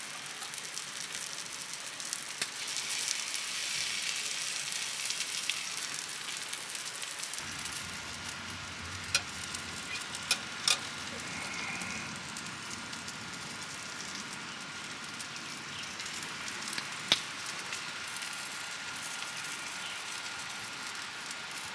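Chicken legs sizzling on an iron griddle over a campfire: a steady hiss with a few sharp pops and clicks, the loudest around the middle.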